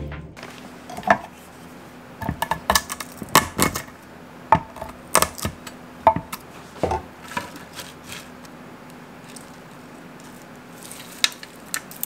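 Chef's knife chopping whole nuts (almonds and pecans) on a wooden cutting board: irregular sharp knocks in quick clusters. The chopping thins out after about seven seconds, with a couple of last clicks near the end.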